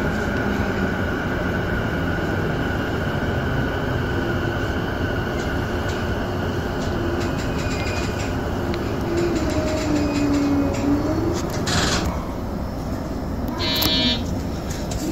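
Electric commuter train pulling out of an underground station and accelerating into the tunnel, heard from the driver's cab: steady rolling and motor noise with the traction motors' whine gliding in pitch. A brief high tone sounds near the end.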